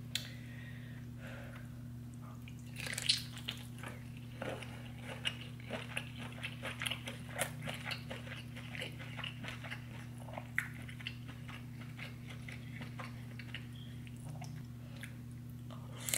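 Close-miked eating of a seafood boil: wet bites and chewing with a run of sticky mouth clicks and smacks starting about three seconds in and thinning out past the middle, over a steady low electrical hum.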